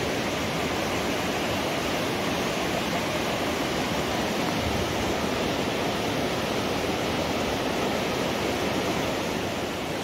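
Shallow, fast-flowing mountain river rushing steadily over stones and small rapids.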